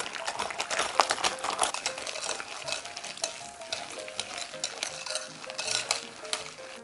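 Wire balloon whisk beating butter, sugar and egg in a glass bowl by hand: a rapid, continuous clicking and scraping of the wires against the glass and through the thick batter.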